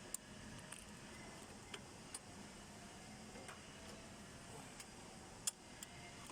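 A few faint, sharp clicks over a low steady hiss: small parts being handled at the fuse box as the EFI fuse is pulled out. The loudest click comes about five and a half seconds in.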